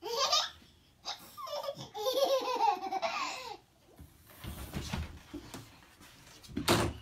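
A toddler laughing in bursts, with a long giggling run in the first half, and one short, loud sound near the end.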